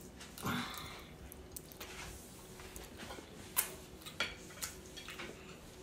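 A metal fork clicking lightly against a ceramic plate now and then, a handful of short irregular clicks as a child eats.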